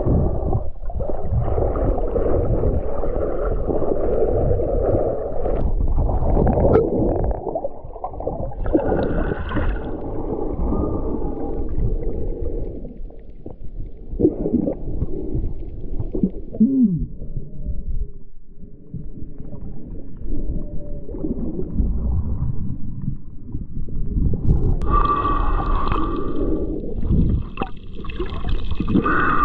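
Muffled gurgling and rumbling of water, with a few short gliding tones near the middle.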